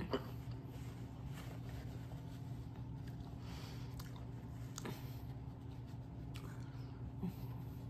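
Paper napkin wiped and dabbed across the lips and face: soft, intermittent rustling and rubbing, with a short sharp click or smack right at the start, over a steady low hum.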